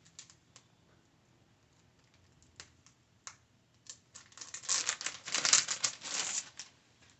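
Plastic packaging crinkling and crackling as it is handled and opened. A few scattered clicks come first, then a dense run of crackling about four seconds in that lasts roughly two and a half seconds.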